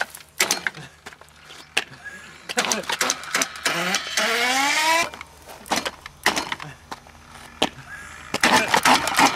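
A car starter motor, a 12 V unit run over-volted at 24 V as the drive of a homemade electric bike, spins up with a rising whine for about a second and then cuts off abruptly. Several sharp clicks and knocks come before and after it.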